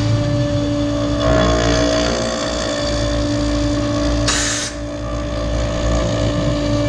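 CNC router spindle running at about 18,000 rpm with a steady whine, its bit milling out end-grain larch, over a low rumble. A brief burst of hiss about four seconds in.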